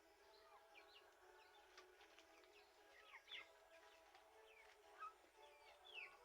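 Faint, quick high chirps and tweets of small birds, a dozen or more short calls sweeping up and down, with a few louder ones about halfway and near the end. A faint steady hum sits beneath them.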